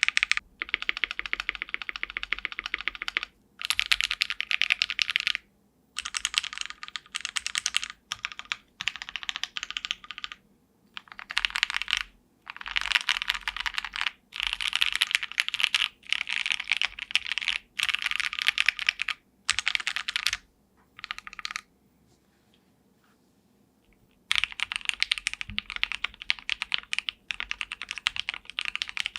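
Typing on a mechanical keyboard fitted with custom keycaps, a sound test of the keycaps: rapid runs of keystrokes broken by short pauses, with a silent gap of about two seconds a little after two-thirds of the way through.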